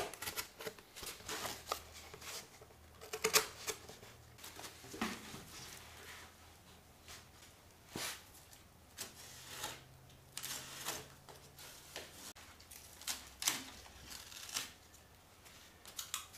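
Stiff cardboard being handled and fitted over a motorcycle's seat frame: irregular rustles, scrapes and light knocks.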